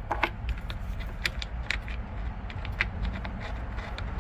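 Scattered light metallic clicks and taps of screws and a screwdriver being worked around the pool pump housing, over a steady low rumble.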